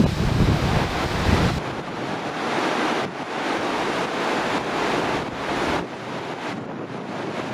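Steady rushing of a large waterfall (Victoria Falls) pouring into its gorge. For about the first second and a half, wind rumbles on the microphone over it.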